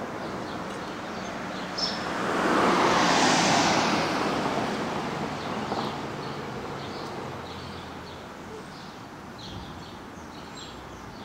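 A vehicle passing on the street: its tyre and road noise swells about two seconds in and fades away over the next few seconds. Faint bird chirps sound throughout.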